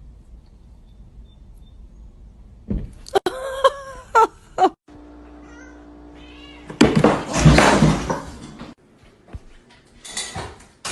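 A cat meows several times, short pitched calls that bend up and down. A couple of seconds later comes a loud noisy burst lasting about two seconds.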